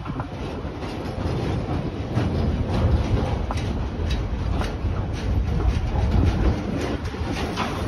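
Freight train of flat wagons loaded with concrete sleepers rolling past, with a steady low rumble and wheels clicking irregularly over the rail joints.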